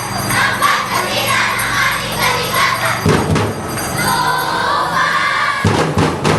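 Music with a beat playing over a loud crowd. A few heavy thumps stand out about three seconds in and again near the end.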